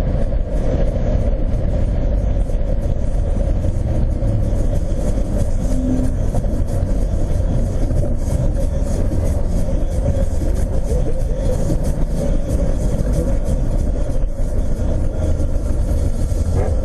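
Inside the cabin of a turbocharged 2002 Nissan Maxima cruising at highway speed: steady engine and tyre rumble with a constant drone. The level stays even, with no acceleration.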